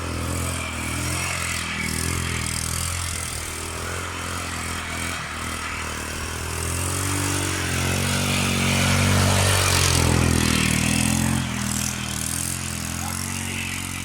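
ATV engine running under way, revs climbing about halfway through to its loudest point, then easing back off near the end.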